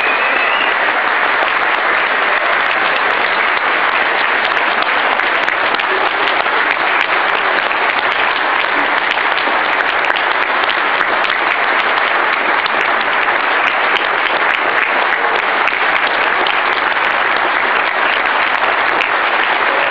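Audience applauding, a sustained round of clapping at an even level throughout.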